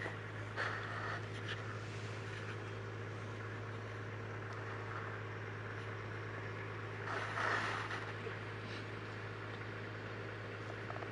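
Steady low hum under a faint noisy background, with two brief swells of rustling noise: a short one about half a second in and a longer one around seven to eight seconds in.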